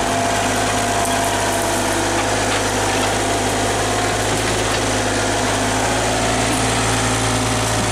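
Small hydraulic excavator's engine running steadily as its arm digs and pushes through brush.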